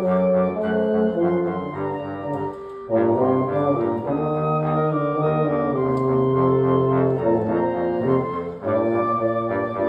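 A small live chamber ensemble of trombone, euphonium and clarinet playing held notes in harmony, with a short pause about three seconds in before the music picks up again.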